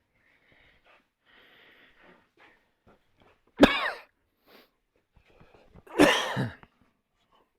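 A man's voice in two short, sudden outbursts about two and a half seconds apart, each falling in pitch, over faint rustling and handling noise.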